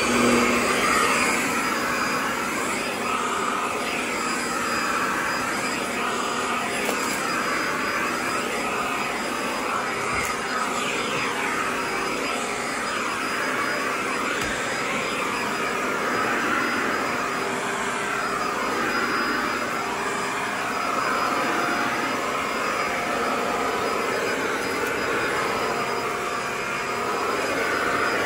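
Corded stick vacuum cleaner running steadily on carpet, with a faint high motor whine, its powered brush head pushed back and forth.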